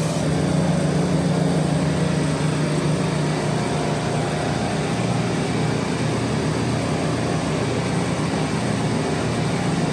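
Steady low hum and drone of commercial refrigeration compressors running, a little stronger in the first few seconds.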